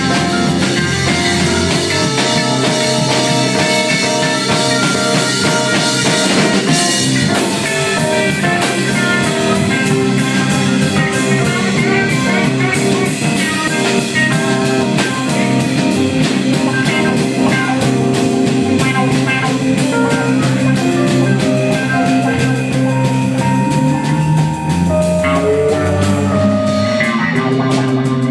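Live rock band playing: electric guitar holding sustained notes over a drum kit keeping a fast, steady beat on cymbals and drums.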